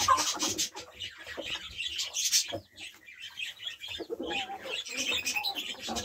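A flock of barred hens clucking in a coop, their short calls mixed with many quick taps and rustles as they peck and jostle, with more clucking in the second half.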